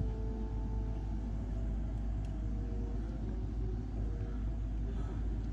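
A steady low rumble. A few held musical tones fade out about a second in.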